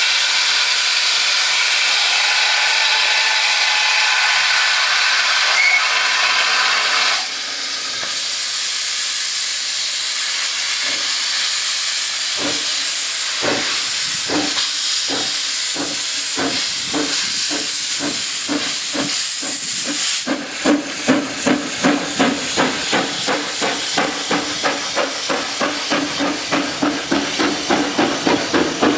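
GWR steam railmotor No.93 getting under way with loud steam hissing. About halfway through, slow exhaust chuffs start under the hiss. They quicken to a steady beat of two or three a second near the end.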